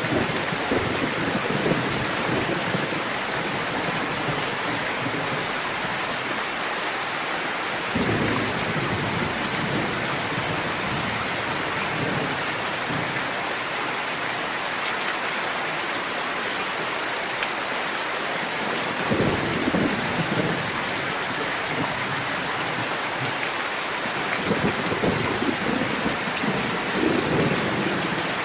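Steady, even rain hiss, with low rolls of thunder swelling up several times: about 8 seconds in, about 19 seconds in, and again near the end.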